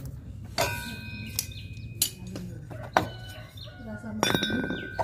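Metal tools and scooter CVT parts clinking as the CVT is taken apart: about five sharp metallic strikes, a couple leaving a brief ring, with a quicker cluster near the end.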